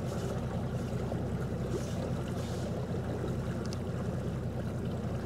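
Boat's outboard engine idling along at slow speed: a steady low hum with an even rush of wind and water over it.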